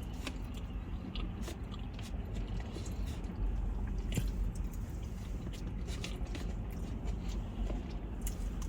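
Close-miked chewing and biting of fast food, with scattered short wet mouth clicks and smacks.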